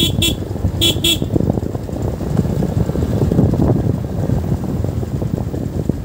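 Motorcycle ride on a rough mountain road: a steady rumble of engine, wind and road, with a horn beeping in two quick double toots in the first second or so.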